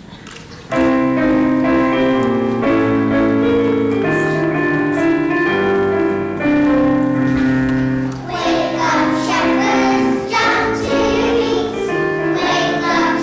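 Music starts abruptly under a second in with an instrumental introduction of held chords. A children's choir comes in singing about eight seconds in.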